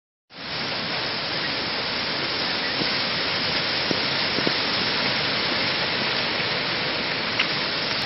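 Steady rushing of a large waterfall: an even wash of water noise that starts abruptly just after the beginning and holds level throughout.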